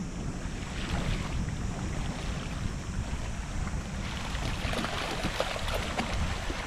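Wind buffeting the microphone aboard a small boat: a steady low rumble with a hiss of water beneath.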